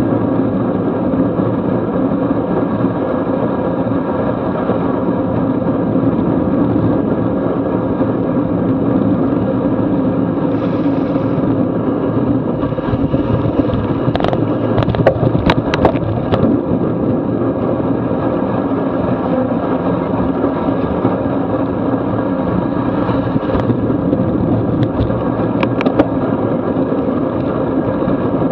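Steady rush of wind over the microphone and tyres hissing on wet pavement, from a racing bicycle moving at about 20 to 24 mph. A few sharp clicks come about halfway through and again near the end.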